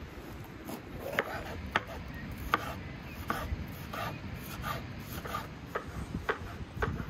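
Kitchen knife chopping a red bell pepper on a wooden cutting board: sharp knocks of the blade on the board at an uneven pace, about one or two a second, starting about a second in.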